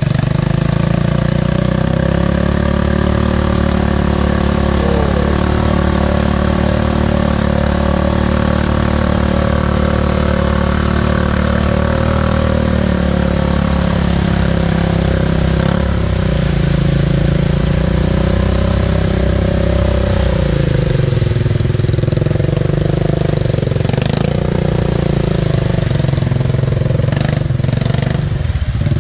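ATV engine running steadily, with its pitch shifting a couple of times as the throttle changes.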